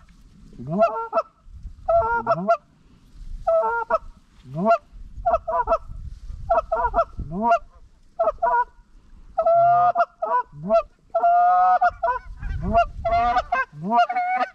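Canada geese honking: a rapid run of short clucks and honks, each breaking sharply upward in pitch. The calls grow denser and overlap about ten seconds in, as the flock comes close.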